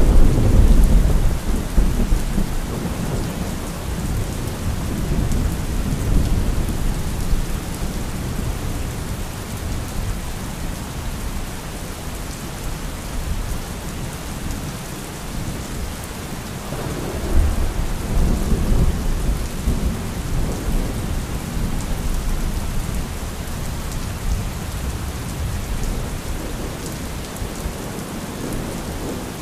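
Thunderstorm: steady heavy rain with rolling thunder, one loud rumble right at the start that fades over several seconds and another a little past halfway.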